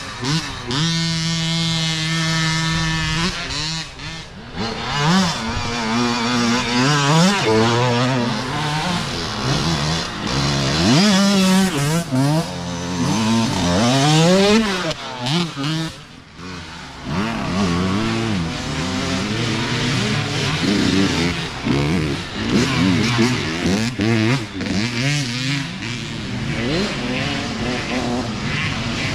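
Youth dirt bike engines revving as several bikes ride past in turn. The engine note holds steady for the first few seconds, then climbs and drops again and again as the throttle is opened and shut through gear changes.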